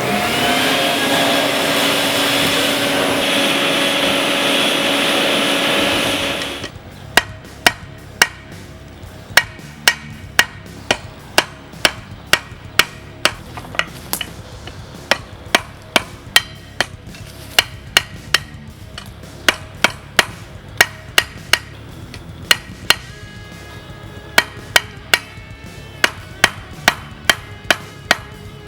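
Hammer blows on hot steel at an anvil, roughly one or two strikes a second, each with a short metallic ring, as a stage-combat spearhead's rounded tip is forged out into a point. For the first six or so seconds a loud steady rushing noise with a few held tones runs instead, then cuts off suddenly.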